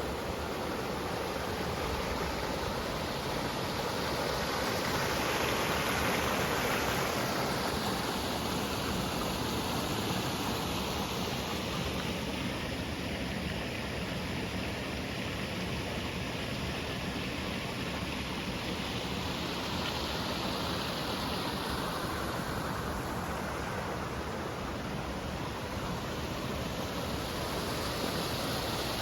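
Steady rush of flowing water, its level swelling and easing gently a few times.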